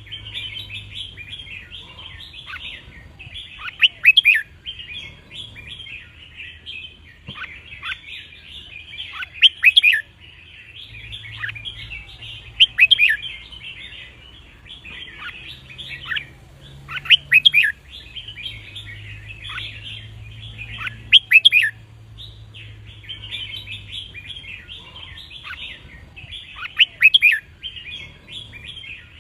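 Red-whiskered bulbuls singing: loud, bright song phrases come every few seconds, six in all, over constant softer chattering.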